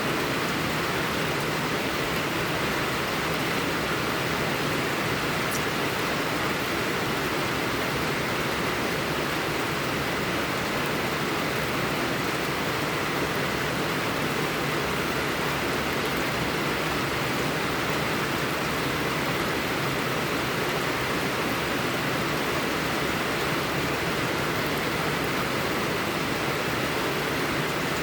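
Steady blizzard wind, an even rushing hiss that does not rise or fall, with one faint tick about five seconds in.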